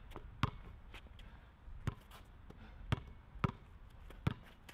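A basketball being dribbled on a hard court: five sharp bounces at uneven intervals.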